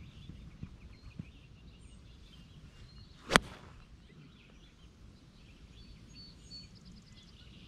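Golf iron striking a Bridgestone e12 Contact ball in a full swing: one sharp click a little over three seconds in. Wind rumbles on the microphone and birds chirp faintly.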